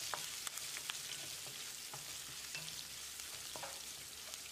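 Mustard seeds, lentils, green chilli and ginger sizzling in a little hot oil in a stainless steel kadai, stirred with a wooden spatula. A quiet, steady sizzle with a few faint ticks.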